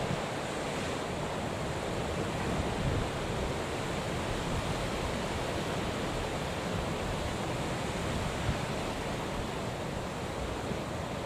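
Steady rush of wind and rough sea with whitecaps, with light wind buffeting on the microphone.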